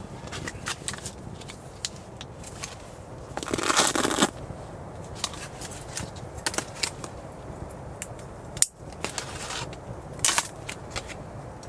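A plastic food packet rustling and crinkling as it is handled and cut open with a small knife, loudest about four seconds in and again near the end. Scattered sharp clicks and crackles run throughout, with one sharp click about two-thirds of the way through.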